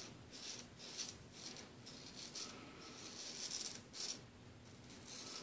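Anthony Esposito Gold Monkey 777 straight razor scraping through lathered stubble on the neck in short, repeated strokes, about two a second.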